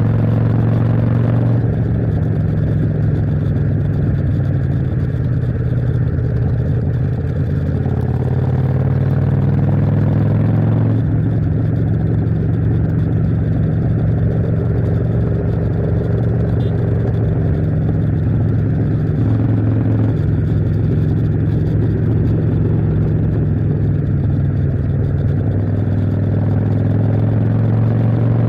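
Motorcycle engine running under way, its note rising as it accelerates near the start and again about eight seconds in, and shifting in pitch every several seconds.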